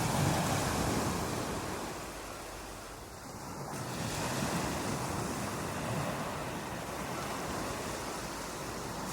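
Ocean surf: waves breaking and washing up a beach in a continuous rush. It swells at the start, eases off about three seconds in, then builds again with the next wave.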